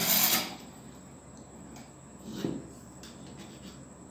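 A Honda CD front fork's metal inner tube sliding in its outer tube, with a short scraping rub at the start and a fainter, lower rub or knock about two and a half seconds in.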